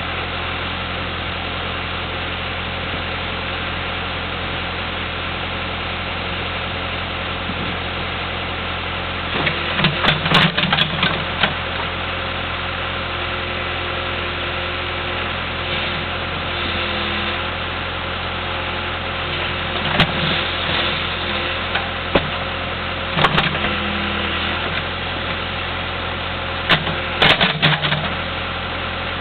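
An engine idling steadily. Several short clusters of sharp metallic knocks and clanks come over it: about ten seconds in, twice in the middle, and near the end.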